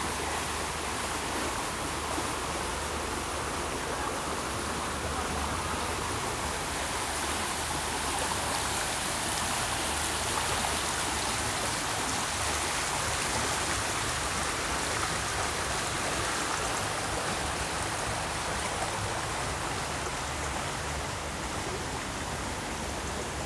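Stream water rushing steadily, an even, unbroken wash of noise.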